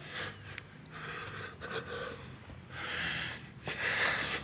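A man breathing hard with exertion as he strains to straighten a fallen gravestone. Two long, heavy breaths come near the end.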